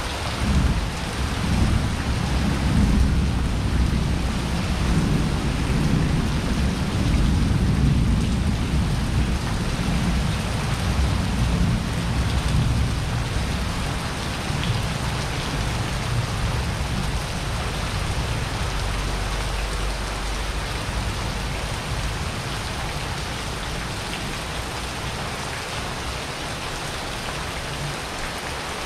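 Rain pouring down steadily in a thunderstorm. A long, low roll of thunder starts about half a second in, rumbles through roughly the first half, and fades away.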